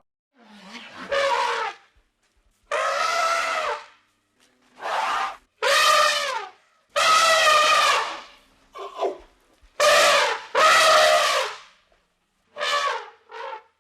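A series of about nine loud, pitched animal calls, each up to about a second long with short silences between them. Some bend down in pitch at the end, and the last two are short.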